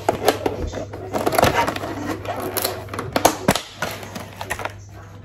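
Kitchen utensils clicking, knocking and scraping against a pot as eggs and flour are added to honey cake batter, busiest from about one to three and a half seconds in, over a low steady hum.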